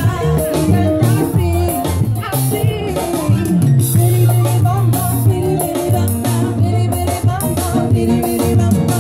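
Live Latin band playing through a PA: a woman singing lead over a steady bass line, drums and shaker percussion.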